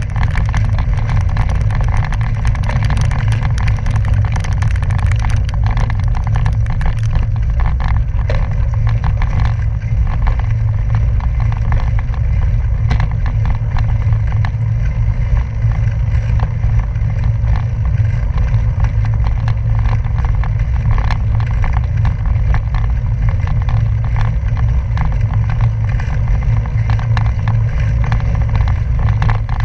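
Bicycle rolling along a gravel road: tyres crunching over loose gravel with many small rattles and ticks, under a steady heavy rumble of wind on the microphone.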